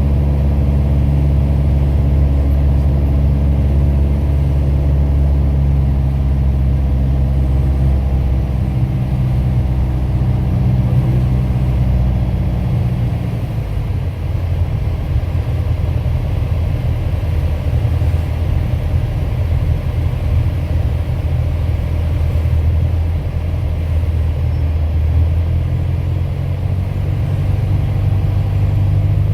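Piper PA-28 Warrior's four-cylinder piston engine and propeller droning steadily. About halfway through, the even tone breaks up into a rougher, wavering sound, and it settles back to a steady drone near the end.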